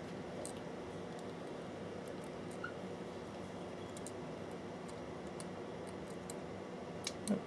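Quiet workbench room tone with scattered light clicks of metal tweezers handling a wire against a circuit board, a brief faint squeak about two and a half seconds in, and a louder cluster of clicks near the end.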